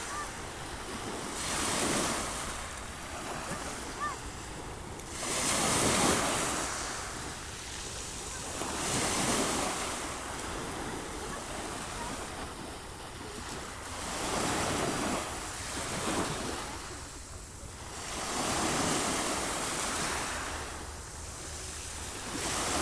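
Sea waves breaking and washing onto the shore, in swells of surf that come and go about every three to five seconds.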